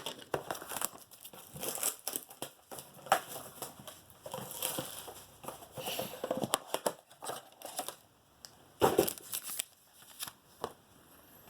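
Trading card blaster box being unwrapped and opened by hand: plastic wrapping crinkling and tearing in irregular bursts, loudest about nine seconds in.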